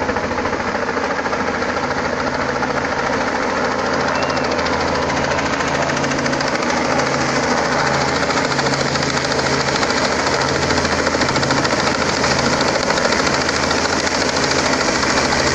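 Small helicopter flying in low and closing in, its rotor making a fast, steady chop over the engine's drone, growing slightly louder toward the end.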